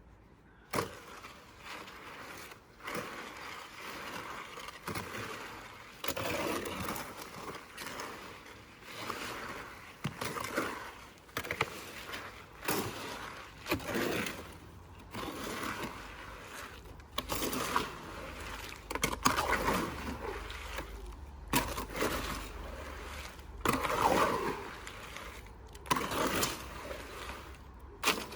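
Wet cement being stirred in a bucket with a trowel: an irregular run of scraping, sloppy strokes as the mix is worked together.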